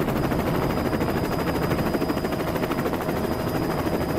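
Light aircraft engine running steadily in flight, heard from on board as a loud, even drone with a rapid pulse.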